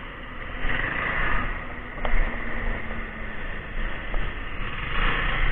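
A motor vehicle running, with a steady low rumble and road or wind noise and a faint steady hum in the middle.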